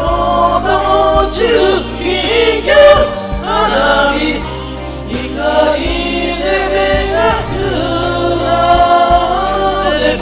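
Several voices singing a Japanese pop ballad together into microphones over a karaoke backing track.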